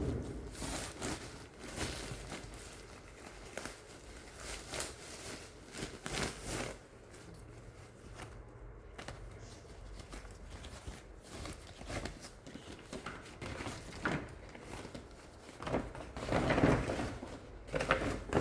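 Plastic packaging and fabric grow bags crinkling and rustling as they are handled and unwrapped, in irregular bursts, louder and denser near the end.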